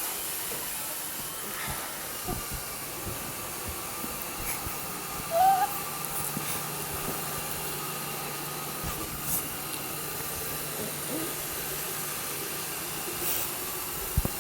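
Roomba Discovery 400-series robot vacuum running over carpet: a steady whirring hiss with a faint whine and a few small knocks. A brief louder high-pitched sound comes about five seconds in.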